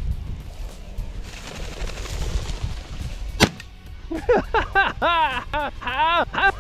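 A single shot from a single-shot .410 shotgun about three and a half seconds in, followed by a rapid string of harsh cackling calls from a rooster pheasant. Wind noise runs underneath.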